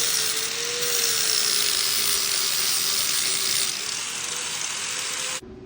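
Angle grinder grinding down an aluminium motorcycle fork lower, a steady high hiss over a motor whine that wavers slightly in pitch as the load changes. It cuts off abruptly near the end.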